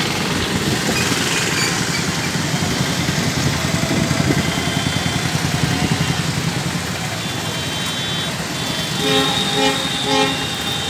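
Street traffic: a steady rush of engines and tyres, with a vehicle horn honking in a quick run of short beeps near the end.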